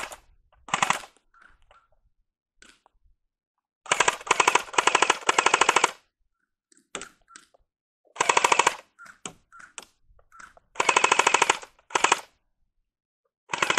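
Airsoft bullpup rifle firing on full auto in several bursts of rapid shots, the longest lasting about two seconds, with shorter bursts before and after it.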